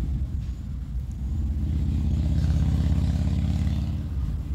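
Motorcycle riding past on a road, its engine note swelling to its loudest around the middle and easing off near the end.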